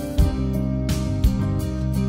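Instrumental music with guitar: held chords under plucked notes at an unhurried pace.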